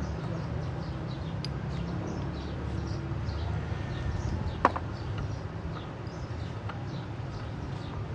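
Small birds chirping repeatedly over a steady low hum, with one sharp metallic clink about halfway through.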